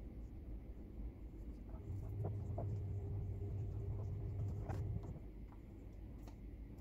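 Fingernails picking and scratching at peeling dead skin on the sole of a foot, after a foot-peel mask: faint scratching with a few small ticks. A low hum swells from about two to five seconds in.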